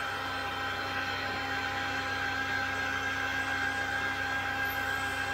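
CNC milling machine with an end mill cutting an aluminium part: the spindle and cut make a steady whine, with chips being thrown off.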